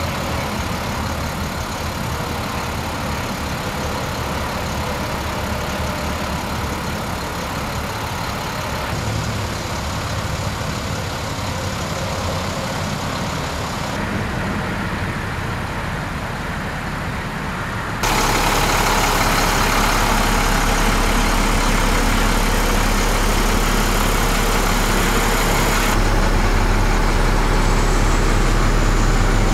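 International bucket truck's diesel engine idling steadily. It gets louder and fuller for the last third.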